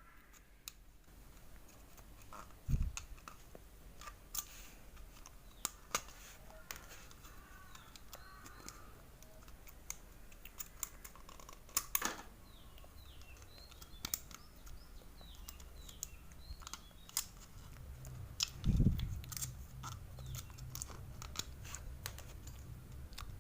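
Scattered small clicks and taps of pliers and hands on a metal motorcycle clutch housing as the worn, softened rubber dampers are pulled out. Two heavier thumps come, one about three seconds in and another later on. Faint bird chirps sound midway.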